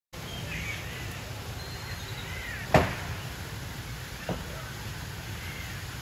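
Birds calling now and then over a steady low rumble, with a sharp knock just under three seconds in and a smaller one about a second and a half later.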